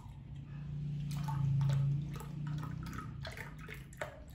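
Milk pouring from a carton into a glass, with a steady stream that is loudest in the middle, and small irregular splashes as the glass fills.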